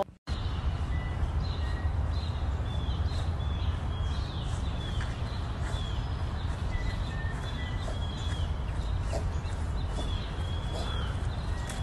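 Small birds chirping in short, arched calls, repeated irregularly throughout, over a steady low rumble.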